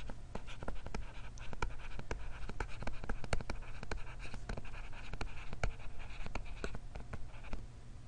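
Stylus tapping and scratching on a tablet screen in quick, irregular strokes as words are handwritten. It stops shortly before the end, over a low steady hum.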